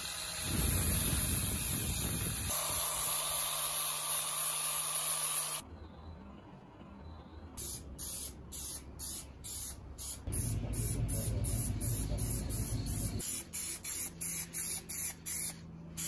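An angle grinder with a flap disc runs for about five and a half seconds, then stops. After a short pause, an aerosol spray paint can hisses in many short, quick bursts, about two or three a second.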